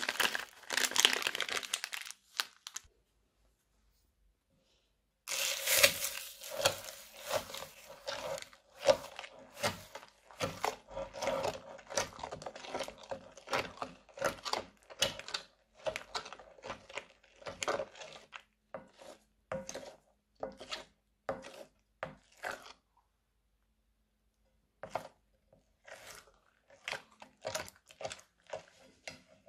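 A plastic piping bag crinkles briefly at the start. Then a silicone spatula stirs thick slime full of small beads, making a rapid run of sticky clicks, squelches and crackles that stops a little before the end and comes back sparser.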